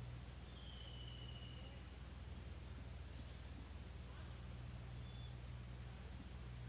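Insects trilling steadily on one high, unbroken pitch, with a faint short whistle about half a second in.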